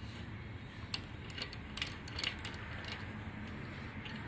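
Scattered metallic clicks and clinks of a steel ratchet wrench being fitted onto a spark plug socket and handled on an air-cooled engine's finned cylinder head.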